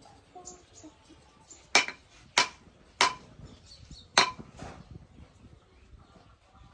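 Four sharp hammer blows on steel, irregularly spaced, each with a short metallic ring, and faint light clinks of metal between them.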